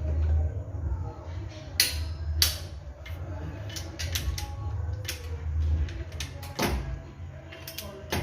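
Wrench work on a Mitsubishi 6G72 V6's cylinder head bolts: a series of sharp metallic clicks and knocks at irregular intervals as the bolts are tightened.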